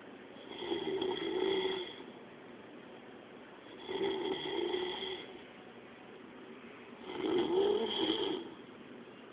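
A sleeping person snoring: three long snores about three seconds apart, with quieter breathing gaps between.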